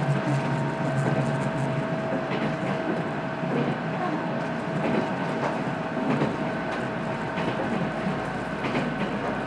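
Running noise inside a moving Nankai Kōya Line electric train: a steady rumble of wheels on rail with a thin steady whine and occasional clicks at uneven spacing.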